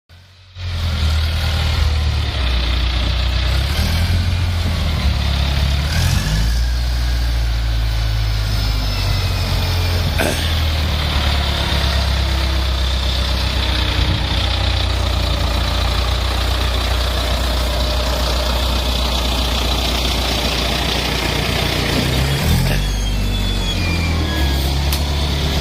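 Corn silage bagging baler running: a steady low machine hum with mechanical noise and faint shifting whines, and a single sharp knock about ten seconds in.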